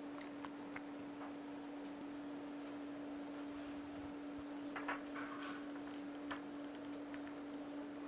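Faint small clicks and scratches as fingers work a metal connector ferrule onto the splayed copper braid of a coax cable, with a short cluster of louder clicks about five seconds in, over a steady low hum.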